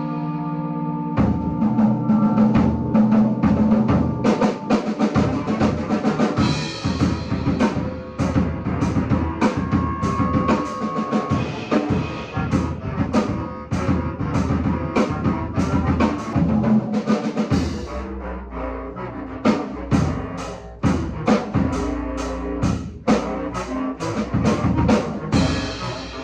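Bass clarinet ensemble and drum kit playing a heavy metal piece: fast, dense drumming under sustained low reed chords.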